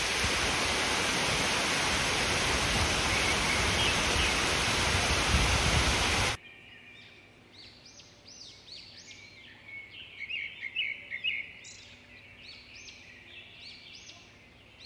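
Heavy rain pouring down in a steady hiss, cutting off suddenly about six seconds in. Then faint birds chirping.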